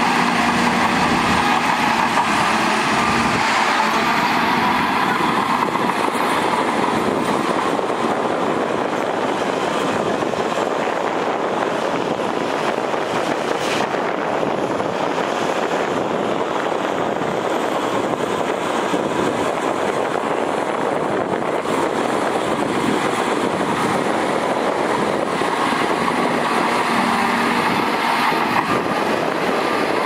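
Heavy diesel earthmoving machines, a Shantui crawler bulldozer and a Matador wheel loader, running steadily under load with a dense mechanical clatter. The engine note swells and falls near the start and again near the end.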